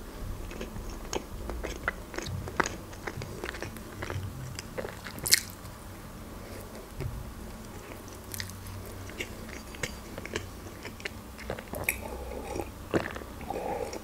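Close-up mouth sounds of chewing a bread-and-pâté sandwich with the lips closed: soft, irregular chewing with many small scattered clicks and crackles, one sharper click about five seconds in.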